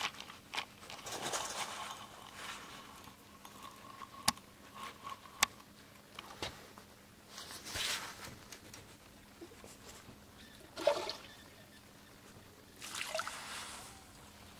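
Lake water splashing and lapping at the edge of a dock in several short surges, with two sharp clicks about four and five and a half seconds in.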